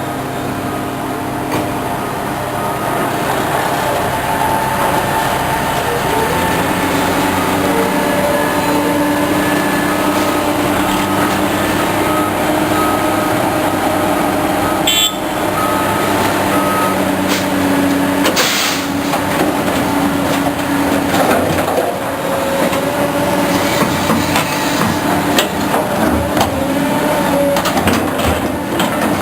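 Heavy diesel machinery of an excavator loading a dump truck, running steadily, with the engine note shifting up and down as it works. A sharp clank comes about fifteen seconds in, and a brief louder rush follows around eighteen seconds.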